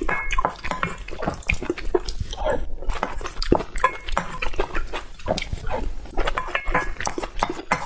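Close-miked eating: irregular wet chewing and mouth smacking, with occasional clicks of utensils against a bowl.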